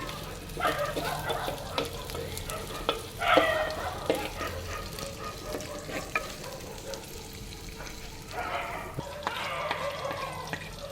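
Sliced onions frying in oil and ghee in a clay pot, sizzling, with a spoon stirring and scraping them around the pot.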